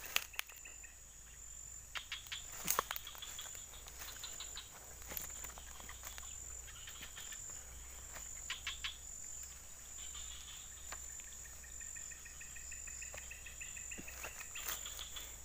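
Steady high-pitched insect chorus, one unbroken shrill note with a fine pulse in it, with a few sharp clicks and rustles over it, the loudest click about three seconds in.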